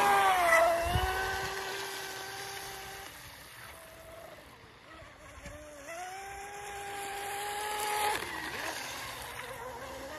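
Radio-controlled electric hydroplane running across the water: a steady high motor whine whose pitch dips and climbs again several times as the throttle is eased and reopened. It fades as the boat runs away and swells again about eight seconds in.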